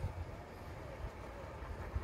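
Low, uneven rumble of wind buffeting the microphone.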